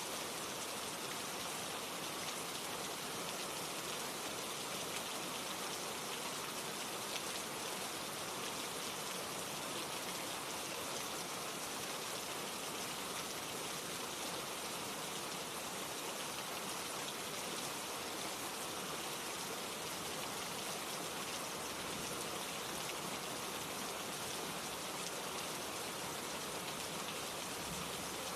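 Steady rain falling on a surface, a dense even patter of drops with no let-up.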